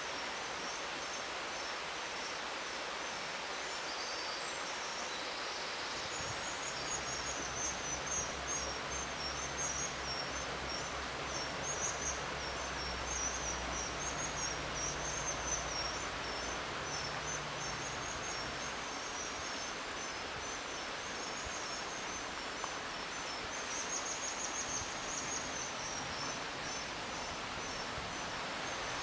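Juvenile white-throated dippers begging with rapid, high-pitched chirping calls, starting a few seconds in, over the steady rush of a shallow stream.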